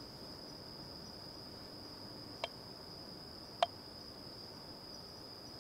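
Steady, high-pitched trilling of night insects, with two short sharp clicks a little over a second apart near the middle.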